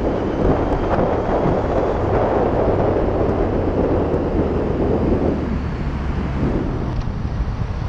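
Heavy wind buffeting on the microphone of a helmet-mounted camera over the low, steady drone of a Yamaha FZ-09's three-cylinder engine while riding. The wind noise eases somewhat after about five seconds.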